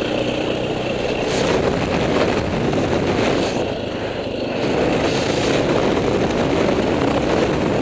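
Single-cylinder four-stroke dirt bike engine running while riding on dirt, with a steady rush of noise; the engine eases off briefly about four seconds in, then picks up again.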